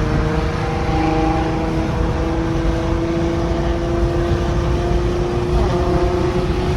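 Infiniti Q50 fitted with test pipes, droning steadily at cruise: a steady exhaust tone over low road rumble, with a brief shift in pitch about five and a half seconds in.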